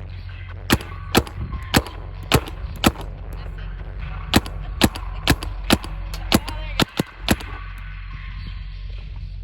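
Paintball marker firing shot after shot, about two a second: a run of five shots, a pause of about a second and a half, then another run of about eight. A steady low hum runs underneath.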